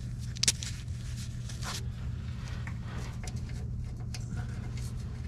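A steel bolt with its lock washer and flat washer handled in gloved fingers, giving a few small clicks, the sharpest about half a second in, over a steady low hum.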